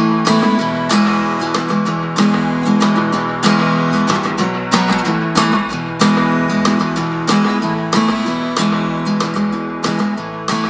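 Background music of strummed acoustic guitar, with regular strokes in a steady rhythm.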